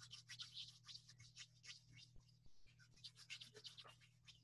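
Faint, quick rubbing strokes of palms rolling a small piece of rice dough into a ball, over a low steady hum.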